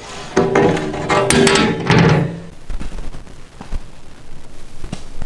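Large aluminium plate clattering against an aluminium cooking pot and ringing, from about half a second in until about two and a half seconds in. Fainter rustling and a few small clicks follow.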